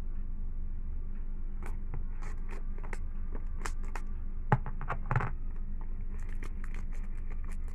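A cardboard smartphone box being opened and handled by hand, giving scattered scrapes and small clicks, with a couple of louder clicks about halfway through.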